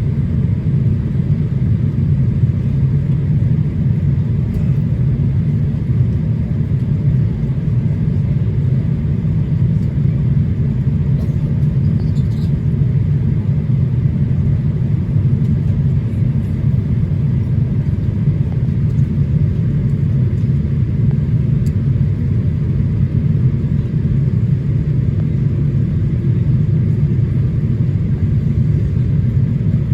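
Steady low rumble of a Boeing 787-8 Dreamliner's cabin during descent on approach: engine and airflow noise at an even level, with no change in pitch.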